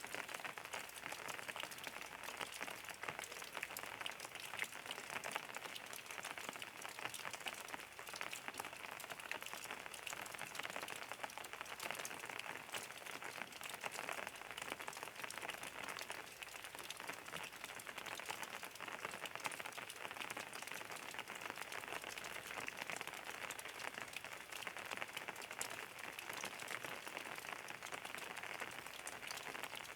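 Steady rain, a dense hiss of countless small drops pattering on a surface.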